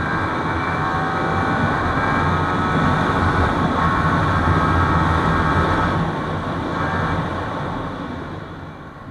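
Yamaha R15 V3's single-cylinder engine running hard at speed, with wind rushing past. The engine note rises in pitch over the first seconds, is loudest in the middle, then fades away over the last two seconds.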